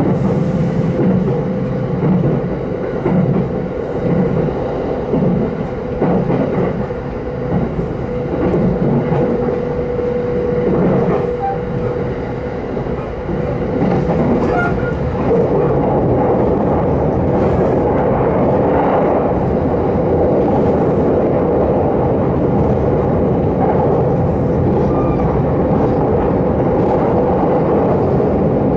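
JR East Takasaki Line electric train running at speed, heard from inside the carriage: wheels on rail with rhythmic clickety-clack and a steady hum. About halfway through the noise turns into a louder, denser rumble as the train runs onto a steel truss bridge.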